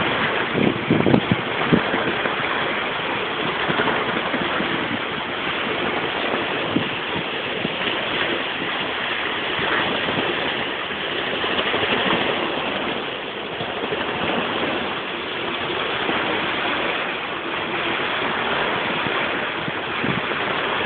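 Steady rushing of flowing water, as from a cascade running down a stepped park water channel, with a few low buffets of wind on the microphone in the first couple of seconds.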